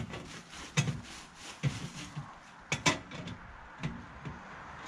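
Metal stovepipe sections on a small wood stove knocking and clunking as they are pushed and fitted together by hand: a series of sharp knocks, roughly one a second.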